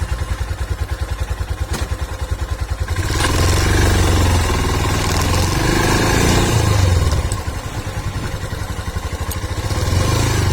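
Royal Enfield Himalayan's single-cylinder engine running through its stock exhaust: an even pulsing idle, then about three seconds in it gets louder for about four seconds as it is revved or pulls away, before settling back to a steadier run.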